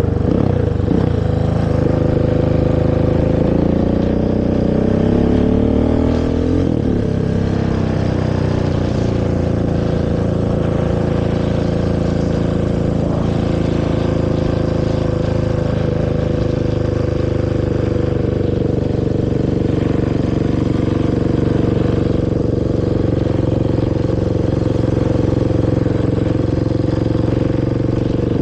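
Honda TRX450 quad's single-cylinder four-stroke engine through its stock exhaust, its pitch rising as it revs up over the first several seconds. It then runs at a fairly steady speed, with small rises and dips in revs.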